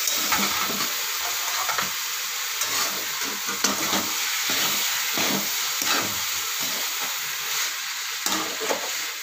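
Cauliflower florets and green peas sizzling as they sauté in ghee in a pan, while a steel spatula stirs them with frequent, irregular scraping strokes against the pan.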